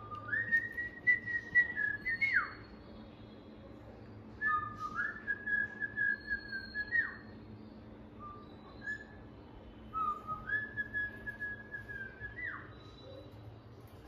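Cockatiel whistling the same short phrase three times. Each phrase is a short low note that steps up to a held higher note and ends in a quick downward swoop.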